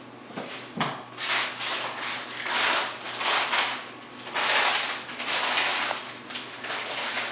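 Rustling and rubbing in a run of bursts, each about half a second to a second long, starting about a second in.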